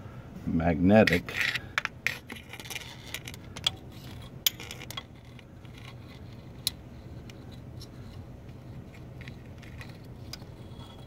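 Small metal tools and parts being handled: scattered sharp clicks, clinks and scrapes, busiest in the first few seconds and sparser after, over a faint steady hum.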